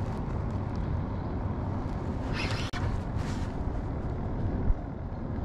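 Wind buffeting the camera microphone, a steady low rumble, with short hissing bursts about halfway through and a dull bump near the end.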